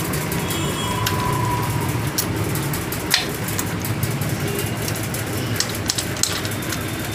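Light metallic clicks and taps as the Karizma R gearbox's shift forks and shift drum are handled and seated among the gear shafts, over a steady low background hum.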